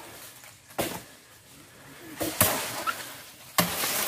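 A few sharp chopping strikes on nipa palm fronds during leaf harvesting, spaced about a second and a half apart, then a louder stretch of rustling and movement in the fronds near the end.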